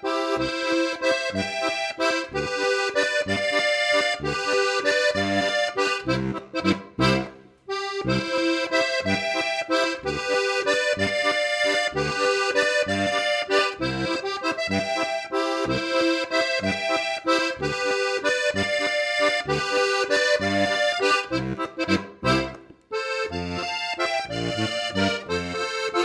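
Background music led by accordion in a traditional folk style, over a steady bouncing bass beat; it drops out briefly twice.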